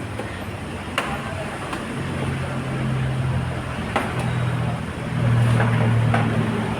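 A motor vehicle engine running steadily, growing louder about five seconds in, with several sharp clicks like tools or metal parts being handled.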